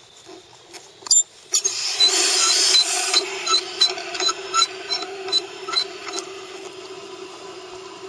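Hose-bib valve with a red handwheel being cranked open: a few sharp clicks, then water rushing and hissing through the valve into the garden hose. A steady whine comes from the flow, with a run of short squeaks, two or three a second, as the handwheel is turned round.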